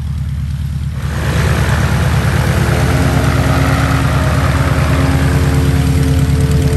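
Continental IO-240 four-cylinder aircraft engine running at taxi power, with its propeller turning, as the light plane taxis by. It grows louder about a second in as the plane nears and swings toward the hangar, then runs steadily.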